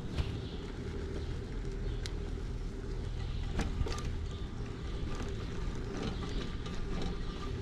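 A road bike riding across a dirt arena floor: a steady low rumble of the tyres rolling and air moving past the microphone, with a faint steady hum and a few sharp clicks and rattles from the bike.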